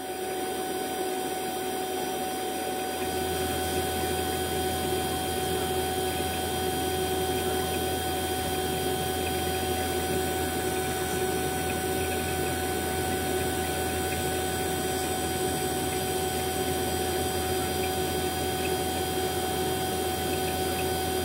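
Fieldpiece VP85 two-stage rotary-vane vacuum pump running steadily while pulling a recovery tank down to a deep vacuum of about 200 microns. A deeper hum strengthens about three seconds in.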